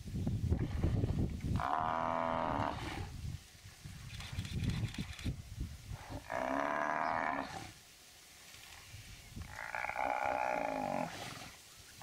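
Cape buffalo bellowing in distress while pinned down and eaten alive by lions: three long drawn-out calls, roughly four seconds apart. Low rumbling fills the first few seconds.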